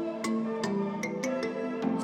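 Background music: held melodic notes over a light, ticking percussion beat.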